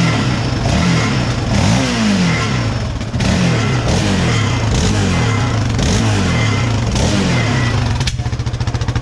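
Yamaha Raptor 700 ATV's single-cylinder engine being blipped over and over, its pitch rising and falling in quick revs, then settling to a steady idle about eight seconds in. The revving is done to bring out a rattle that the owners place inside the muffler rather than in the motor.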